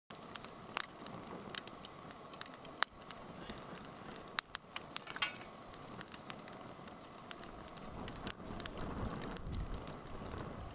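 Wood campfire crackling: irregular sharp pops and snaps over a soft steady hiss.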